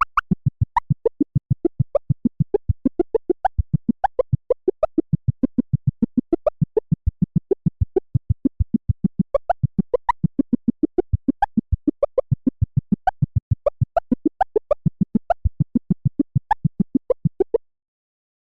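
Electronic synthesizer sound effect: a rapid, even run of short pitched blips that jump about in pitch, cutting off shortly before the end.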